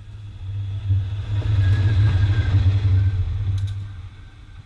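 Diesel-electric locomotive running, a heavy low rumble that swells and then fades about four seconds in.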